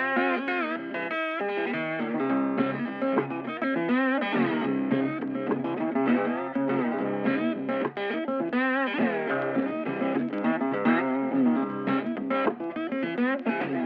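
Background music led by an electric guitar, with wavering, bent lead notes over a steady accompaniment.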